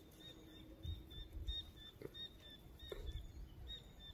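Faint, quick, high bird chirps repeating several times a second, with a few soft low sloshes of shallow water as the cast net is gathered.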